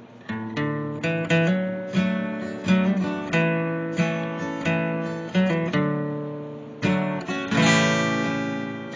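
Acoustic guitar playing alone, picking and strumming a run of chords that are each left to ring. A fuller chord is strummed near the end and rings on.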